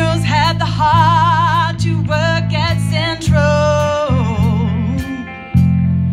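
Live band performance: a woman singing long held notes with strong vibrato into a PA microphone, backed by strummed guitars and a drum keeping time.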